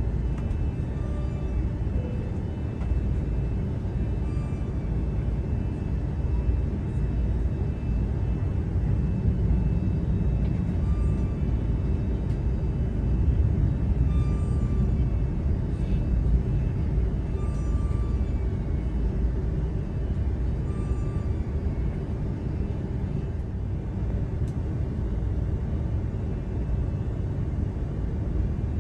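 Airbus A330-300 cabin noise: a steady low rumble of the engines and airflow, with faint short high tones recurring every few seconds.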